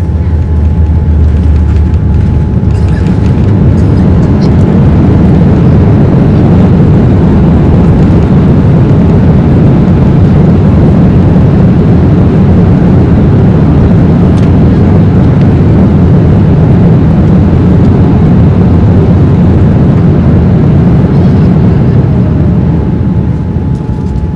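Loud, steady roar inside the cabin of a Boeing 787-9 during its landing rollout: the Rolls-Royce Trent 1000 engines and the wheels rumbling on the runway as the aircraft decelerates with spoilers up. The roar eases off near the end as the aircraft slows.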